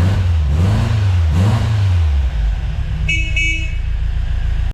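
A car engine revving up and back down twice, then the car's horn sounding two short toots about three seconds in.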